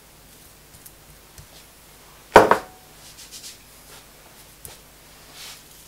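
Faint scrapes and light taps of a knife spreading mustard over raw beef on a wooden cutting board, with one loud sharp knock a little over two seconds in.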